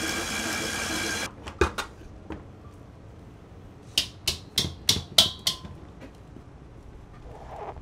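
Stand mixer motor running while its beater churns batter in a steel bowl, cut off suddenly a little over a second in. Then a few knocks and a quick run of six sharp metallic clinks with a short ring, as the mixer's wire whisk is knocked against a stainless-steel bowl to shake off whipped egg white.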